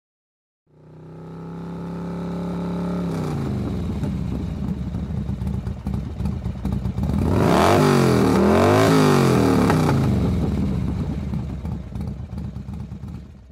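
Motorcycle engine running steadily, then revved several times, its pitch rising and falling repeatedly about halfway through where it is loudest, before fading out near the end.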